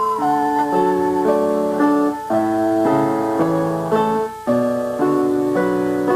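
Piano played as a run of chords, a new chord struck about twice a second, each ringing until the next.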